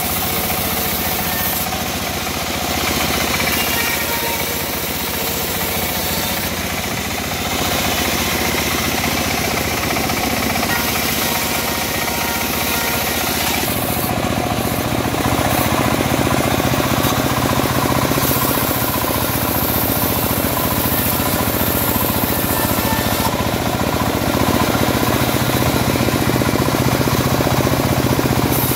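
Homemade band sawmill running and sawing teak logs: a steady machine drone with the blade rasping through the wood. The sound changes abruptly about halfway through, becoming fuller and louder.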